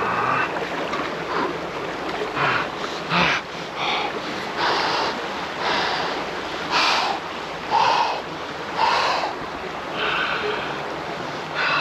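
A swimmer in a flowing river: a short splash with a heavy breath about once a second over the steady rush of the water.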